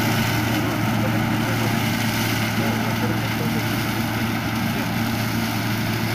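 Farm tractor's diesel engine running at a steady pace while driving a rear-mounted rotary implement through grass, a constant low hum with no change in speed.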